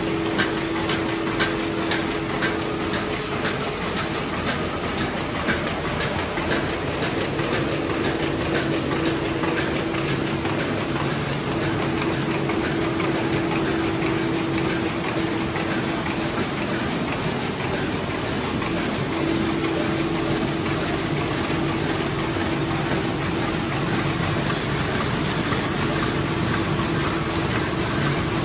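High-speed envelope inserting and folding machine running: a steady hum under a dense, rapid clatter of clicks from its feeding and folding mechanisms.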